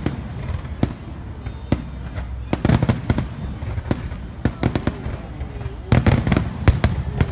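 Aerial fireworks shells bursting in a rapid, irregular run of sharp bangs and crackles. The reports come thickest about two and a half seconds in and again near the end.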